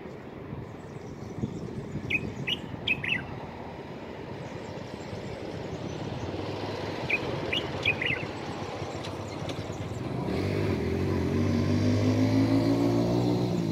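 Common bulbul giving two short bursts of bright chirps, about two and seven seconds in, over a steady traffic hum; for the last few seconds a passing motor vehicle's engine grows loud, its pitch sliding.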